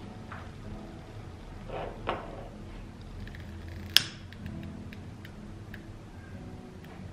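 Small handling sounds in a quiet room: a couple of soft knocks, then one sharp click about four seconds in, and a few faint ticks, over a low steady background.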